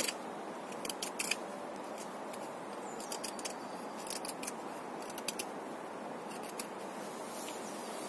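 Serrated knife blade of a Leatherman Wave multi-tool shaving thin curls off a wooden stick to make a feather stick: short scraping strokes in small clusters, roughly once a second, over steady background noise.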